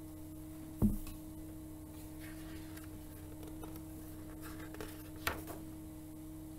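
Steady low hum of a quiet room, with a single soft bump about a second in and faint rustles and a click near the end as a picture book is lowered and its pages are handled and turned.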